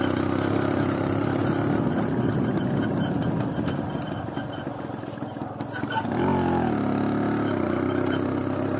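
A motor vehicle's engine running steadily. It eases off a little around the middle, then picks up with a rising pitch about six seconds in and settles into a steady note.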